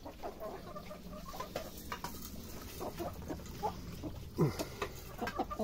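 Chickens clucking at feeding time: many short, soft clucks scattered through, with one lower, falling call about four and a half seconds in.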